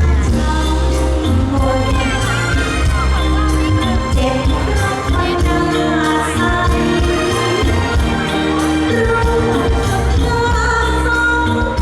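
Live Thai luk thung band playing amplified through a PA, with singing over a heavy, pulsing bass.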